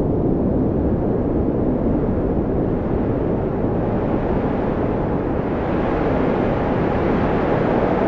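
Blizzard wind blowing steadily, a dense low rush of cold wind that grows hissier toward the end.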